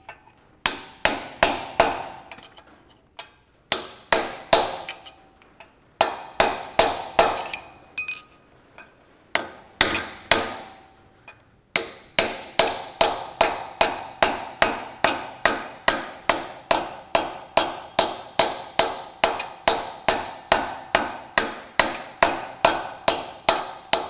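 Hammer blows on a steel drift, driving a bearing onto a tractor's front hub housing. Each strike rings; short groups of blows with pauses at first, then from about halfway a steady run of about two blows a second.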